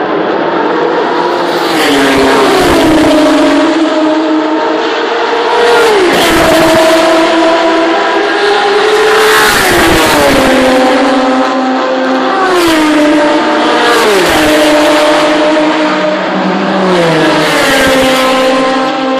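Historic 1970s–80s touring race cars going past at speed one after another, about five pass-bys. Each engine note swells and then drops in pitch as the car goes by.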